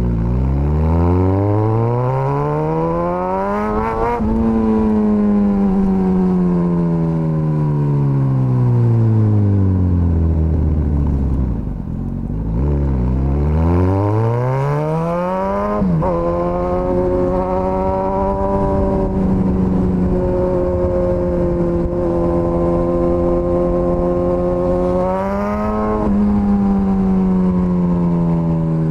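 Suzuki GSX-S1000's inline-four engine under way. It accelerates hard for about four seconds, then engine speed falls off slowly over several seconds. It pulls up again, shifts up with a step down in pitch, and holds a steady cruise. Near the end there is a brief rise before it eases off.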